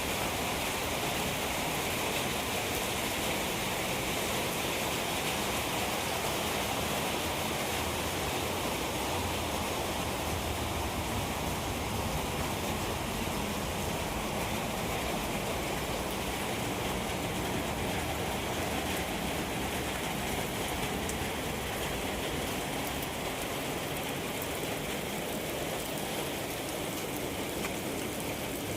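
Steady rain falling, an even hiss of drops on the surroundings.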